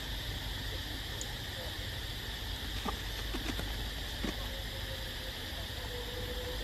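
Outdoor ambience: a steady high drone of insects over a low rumble, with a few faint ticks about halfway through.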